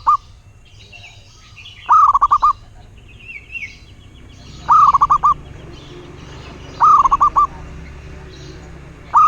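Zebra dove (perkutut) cooing: loud phrases of quick staccato coos, repeated about every two to two and a half seconds, the last one starting near the end. Fainter chirps of other small birds sound between the phrases.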